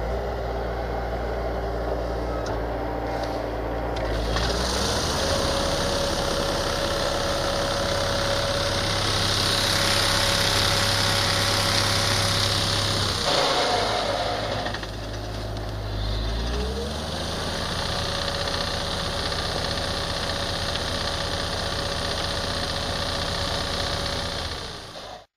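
Bobcat skid-steer's diesel engine running while its front-mounted trunk shaker vibrates a young olive tree in two spells. The first runs from about four seconds in to about thirteen seconds in, and the second starts about three seconds later and runs until the sound cuts off near the end. Each spell brings a steady hum over the rustling of the shaken branches.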